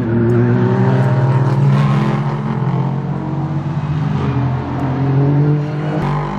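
GT race car engines running at speed on the circuit. The engine note's pitch climbs and drops back a few times.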